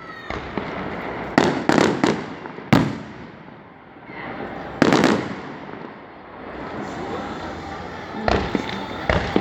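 Fireworks shells bursting in the sky: a series of sharp booms, several clustered in pairs, each trailing off in an echoing rumble.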